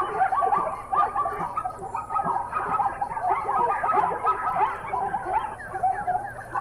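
A chorus of many animals calling at once: short, overlapping calls that bend in pitch, piling up without a break.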